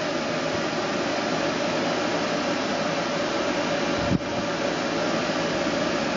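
Ceiling fan running: a steady whir with a faint hum in it. A single short knock about four seconds in.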